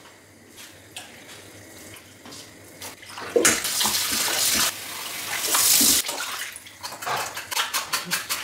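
Kitchen tap running into a metal bowl of beef tripe in a stainless steel sink. It starts about three seconds in and stops about three seconds later. Then come quick wet squelches and splashes as the tripe is scrubbed by hand.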